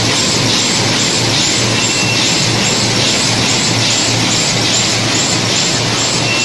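Automatic cartoning machine running in production: a steady loud mechanical clatter with a regular cycle of about two and a half beats a second as cartons are fed, folded and pushed along.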